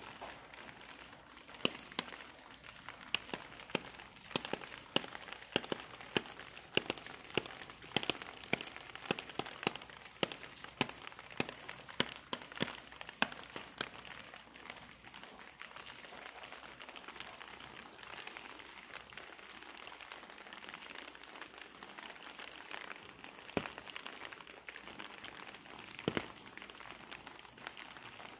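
Rain falling with a steady hiss, and many irregular sharp drips tapping on a hard surface, thick for the first half and only now and then later on.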